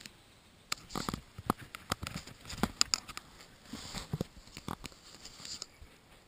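Handling noise close to a body-worn camera's microphone: irregular clicks, knocks and rustling as the camera and clothing are moved about, dying down near the end.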